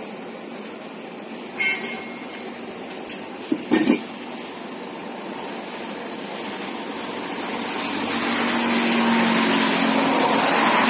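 Outdoor street background with traffic noise that swells louder over the last few seconds. A short squeak comes a little under two seconds in, and a few sharp knocks come about four seconds in.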